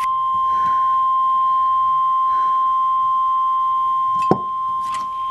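NOAA Weather Radio warning alarm tone: a single steady tone of about 1 kHz (the 1050 Hz alert tone) sounding ahead of a new warning, with a sharp click about four seconds in.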